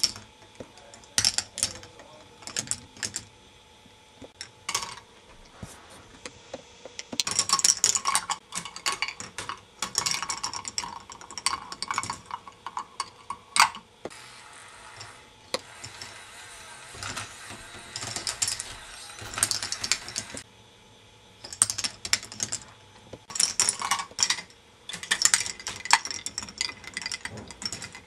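K'nex ball machine running: small balls clicking and clattering through plastic tracks and lift pieces in irregular clusters, with a steadier rattle for several seconds midway.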